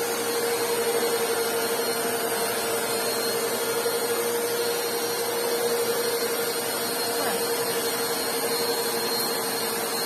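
2000 W Wap Life Speed upright vacuum cleaner running steadily, a whooshing motor noise with a steady whine. Its hose is not yet fitted, so the dust is blown out through an opening instead of being sucked in.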